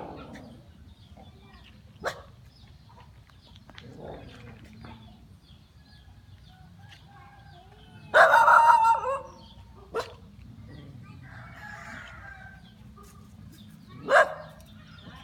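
Rooster crowing once, about a second long, roughly eight seconds in. A single short call comes near the end, with a couple of sharp clicks in between.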